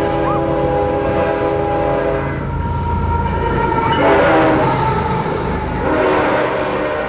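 A train going by with its multi-tone horn sounding three times, the first blast about two and a half seconds long, over the steady low rumble of the train.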